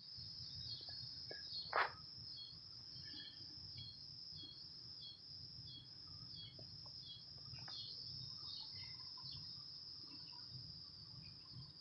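A steady, high-pitched insect chorus with short chirps repeating about twice a second, over a faint low rumble. A single sharp knock sounds about two seconds in.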